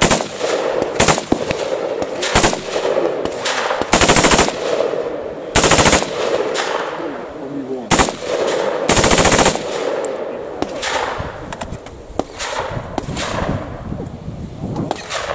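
Colt M16A1 rifle firing 5.56 mm rounds on full auto: three short bursts of about half a second each, with single shots between them.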